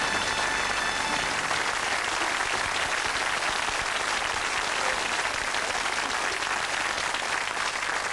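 Studio audience applauding steadily, with music fading out about a second in.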